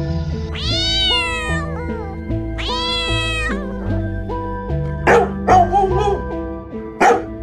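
A cat meows twice, each a long call that rises and then falls. Then a small dog gives several short, sharp barks, all over background music with a steady beat.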